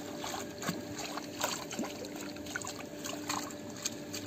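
Water trickling and splashing around a mesh keep net as it is handled in the water, with scattered small, sharp splashes and drips, over a faint steady hum.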